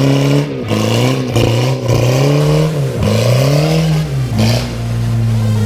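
Car engine revved hard again and again, its pitch rising and falling with each rev, then holding steadier near the end, as for a burnout.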